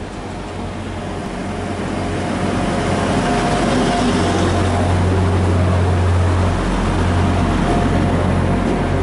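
Class 175 diesel multiple unit running into the platform and passing close by, its engines giving a steady low drone over the rolling noise of the coaches, growing louder over the first few seconds and then holding.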